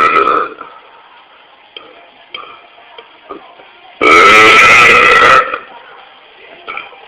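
A man belching loudly: the end of one long burp at the start, then a second long, loud burp about four seconds in that lasts about a second and a half.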